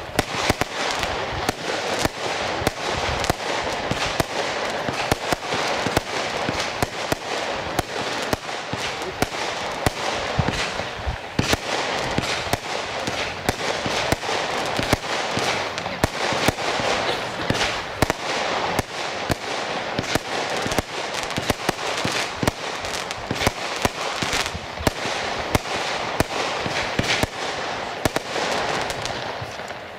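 Keller 'Firestorm' consumer firework cake (Verbundfeuerwerk) firing: a dense, rapid run of shots and small aerial bursts that stops just before the end.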